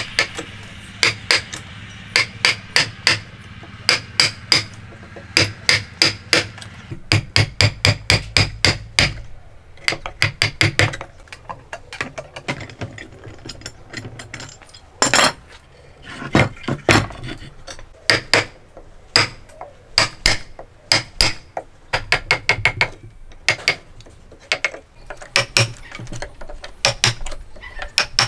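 Hammer blows on wood in quick runs of several strikes, with short pauses between the runs; the blows come more sparsely after about ten seconds.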